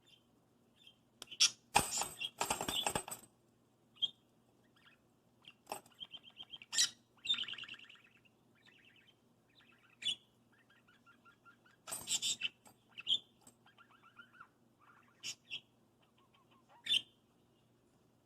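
Pet budgerigar chattering and chirping in short, warbling bursts. Twice, about a second and a half in and again around twelve seconds, there are louder bursts of jingling and rattling as it attacks its toy bells.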